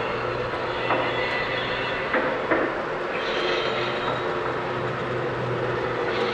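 Lionel Amtrak Acela O-gauge model train running past on three-rail track: a steady hum, with a few sharp clicks between about one and two and a half seconds in.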